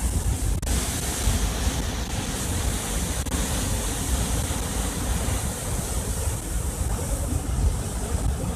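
Steady rush of floodwater pouring out below a dam into the river, with wind buffeting the microphone.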